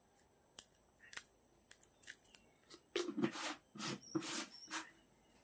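Several short animal calls in quick succession, starting about three seconds in, with a few faint clicks before them.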